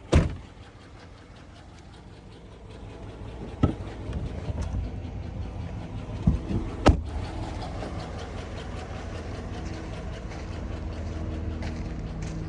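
The 2007 Chevy Avalanche's V8 engine idling steadily, getting louder from a few seconds in, with a few short sharp knocks along the way.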